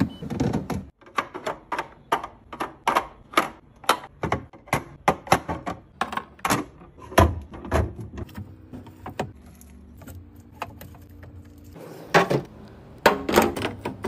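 Clear plastic fridge storage bins and their lids clacking and tapping as they are set on the fridge shelves and slid into place: many quick sharp clicks and knocks, sparser after about eight seconds, with a louder clatter near the end.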